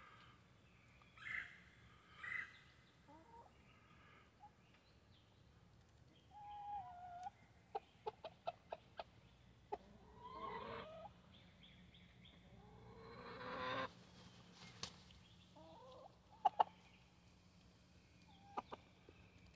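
Chickens clucking and calling on and off, with a longer call about two-thirds of the way through and a few sharp clicks.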